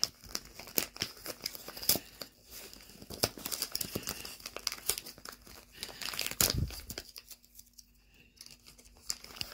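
A plastic parts bag with a paper header card being torn open and crinkled by hand, in irregular crackling bursts. A soft thump comes about two-thirds in, and the crinkling thins out near the end.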